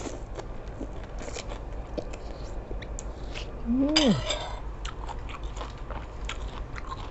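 Close-miked eating of seafood suki: chewing, with many small wet mouth clicks and smacks. About four seconds in there is a short vocal hum that rises then falls.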